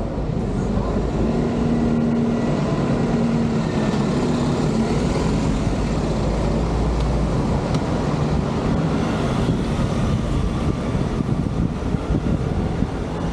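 A motor vehicle running steadily, heard from on board: a continuous engine drone with a faintly shifting tone, under road and wind noise.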